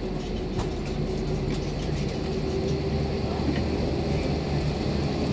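Airbus A321 cabin noise while taxiing: the idling jet engines and airframe give a steady drone with a low hum and a faint held tone.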